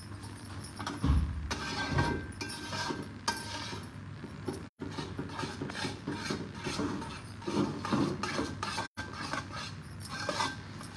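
Flat spatula scraping and stirring a thick ragi and jaggery mixture in a brass pan, with irregular clinks of metal on the pan's rim. Two low knocks about a second and two seconds in.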